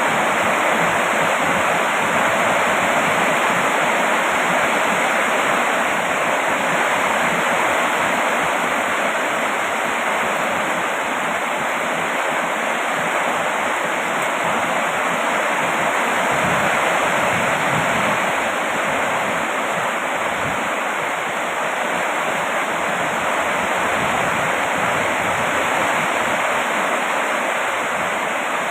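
Heavy rain falling steadily as an even, dense hiss.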